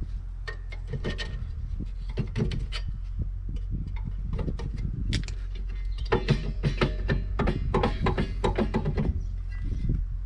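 Irregular metallic clicks, clinks and knocks of drum brake parts being handled and worked loose, busiest in the second half, over a steady low hum.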